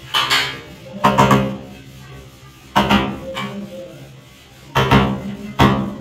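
A wood chisel struck on its handle end five times at irregular intervals, chopping out a lock mortise in the edge of a wooden door, over background music.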